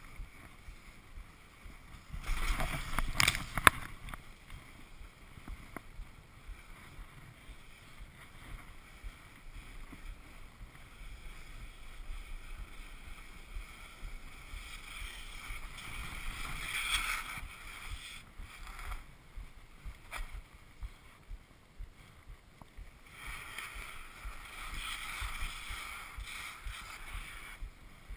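Skis sliding and scraping over snow during a steep descent, rising in swells as the skier turns. The loudest surge comes about two seconds in, with a few sharp clacks, and it swells again a little past halfway and near the end.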